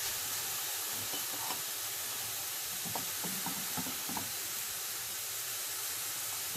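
Shrimp and pork belly frying in a little oil in a nonstick pan: a steady sizzle, with a few light clicks.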